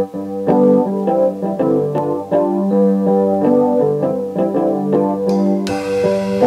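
Solo instrumental tune played on a digital piano, likely the Casio Privia PX-110, a busy run of notes over steady lower notes, recorded onto reel-to-reel tape. Near the end a bright, hiss-like wash comes in over the playing.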